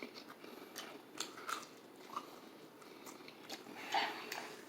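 Someone biting into and chewing crispy KFC fried chicken: scattered short crunches and clicks, the loudest near the end.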